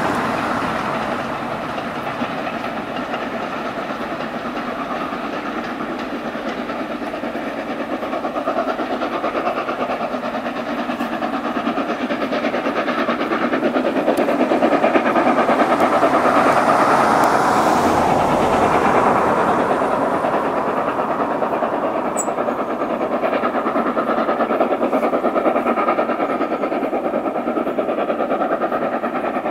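Ex-S&DJR 7F 2-8-0 steam locomotive No. 53808 working a goods train past, its exhaust mixed with the rattle of the wagons over the rails. The sound is continuous and swells about halfway through as the wagons go by.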